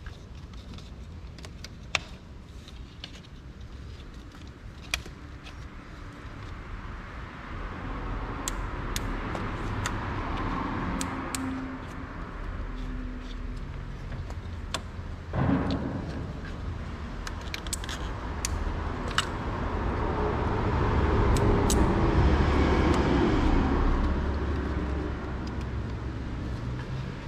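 Two road vehicles passing by, each rising and fading over a few seconds, over a steady low rumble, with scattered light clicks and a single knock midway.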